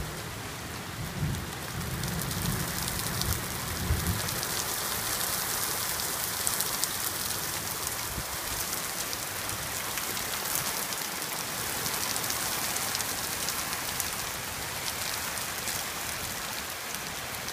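Heavy thunderstorm rain pouring onto a wooden porch deck and yard, a steady hiss. A low rumble of thunder comes in the first few seconds.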